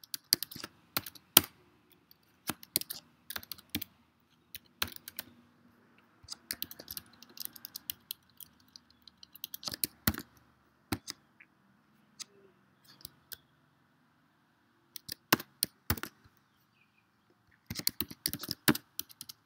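Computer keyboard typing: keystrokes in irregular bursts with a few short pauses.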